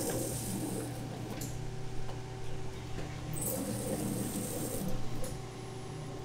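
Motorised circular blade cutting a slab of crunchy purple rice candy on a conveyor: a steady machine hum with gritty, scraping bursts as the blade bites through the candy, at the start and again from about three and a half to five seconds in.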